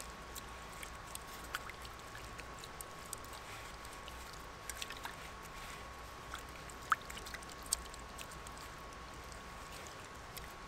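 Faint scrubbing of a silicone scrubber against the inside of a titanium fry pan with hot water in it, with light scattered clicks and two sharper taps about seven seconds in.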